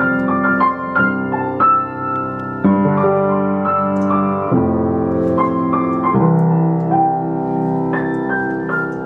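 Background music: a piano or electric piano playing a slow melody over sustained chords.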